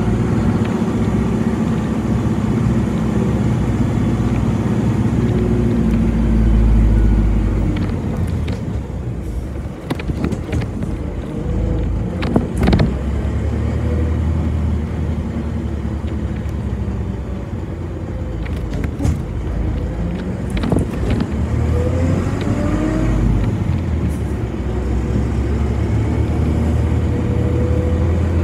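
Ride inside a city bus: the bus's motor drone and road noise, easing off through the middle with a few sharp knocks, then rising in pitch near the end as the bus gathers speed.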